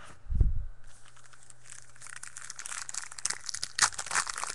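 A low thump about half a second in, then a trading card pack's wrapper crinkling and tearing as it is ripped open up close, a dense crackle that builds from about two seconds in.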